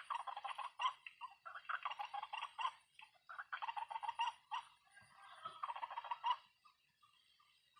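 White-breasted waterhen calls: four bursts of rapid, chattering repeated notes, each about a second long with short gaps between, stopping about six and a half seconds in.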